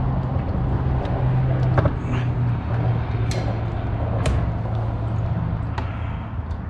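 A steady low rumble, with four sharp clicks and taps from fishing gear being handled in a kayak.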